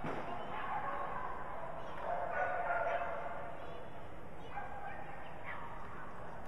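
Dog barking and yelping, drawn-out barks every second or two, echoing in a large indoor arena.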